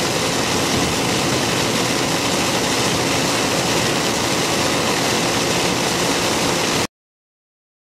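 Steady rushing noise of a vehicle driving on a wet road in rain, heard from inside the vehicle. It cuts off abruptly near the end.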